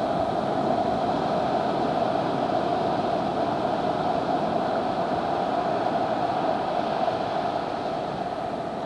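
Ocean surf breaking and washing up a sandy beach: a steady rush with no single crash standing out.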